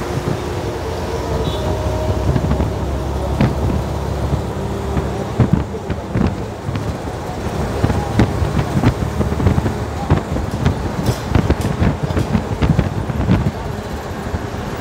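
Moving bus heard from aboard: steady engine and road rumble with frequent rattles and knocks from the bus body.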